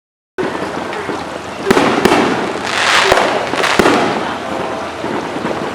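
Aerial fireworks going off: a continuous crackle and hiss of bursting shells, with several sharp bangs standing out from about a second and a half in. The sound cuts in abruptly just under half a second in.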